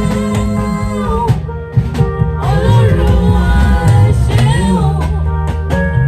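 Music: a Yoruba gospel praise song with a gliding sung or lead melody over a drum kit and bass.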